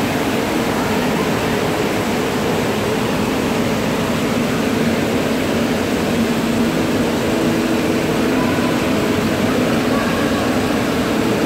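Steady, even roar of an indoor water-park pool hall: air handling and running water with a faint hum, unchanging throughout.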